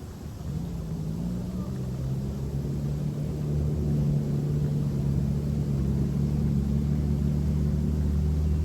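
A low engine drone that comes in about half a second in, rises slightly in pitch and grows louder over the next few seconds, then holds steady.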